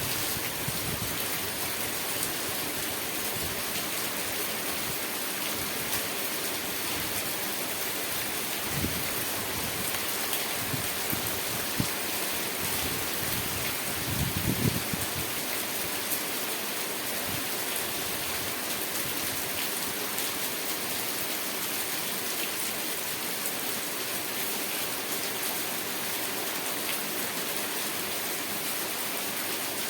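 Steady rain falling, a dense, even hiss of drops, with a few soft low thumps, the most noticeable about halfway through.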